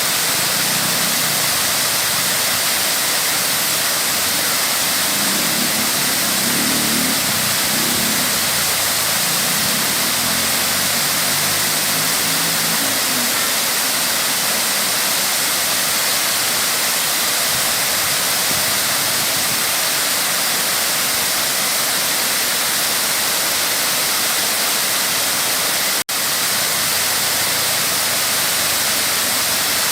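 Waterfall: a steady, dense rush of falling and splashing water. A faint low sound shows through partway in, and the sound cuts out for an instant near the end.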